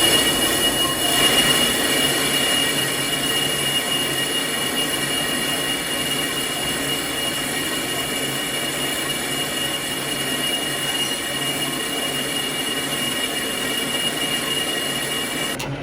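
Metal lathe cutting a motor pulley, the cutting tool giving a steady high-pitched squeal over the grinding noise of the cut. It starts abruptly and cuts off near the end.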